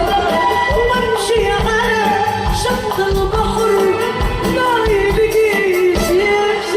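Music with a singing voice over a steady percussion beat.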